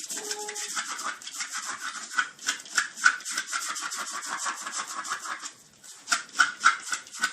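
A dog digging and scratching at a surface with its paws: a quick run of scratching strokes that pauses briefly about five and a half seconds in, then starts again.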